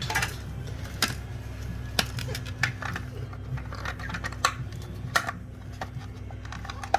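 Irregular light clicks and taps of hands handling tools and parts while working on a crimped cable joint, over a steady low hum.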